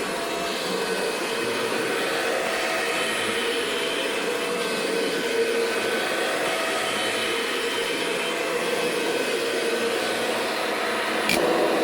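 1998 Kirby Generation 5 upright vacuum cleaner running steadily, a rushing motor noise with a steady whine. A sharp click comes near the end, and the sound grows a little louder after it.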